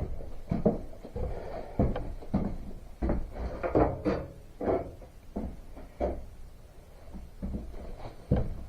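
Storm door and its bottom plate being handled: a string of irregular knocks, clunks and rattles.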